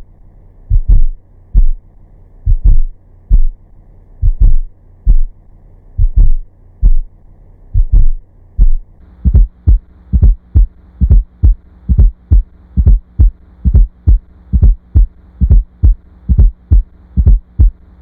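Heart sounds with an added fourth heart sound just before S1: the 'Tennessee' atrial gallop rhythm of deep thumps, slowed down at first and then speeding up to real time about halfway through. An S4 is the sign of stiff, non-compliant ventricles (diastolic dysfunction) and is never physiological.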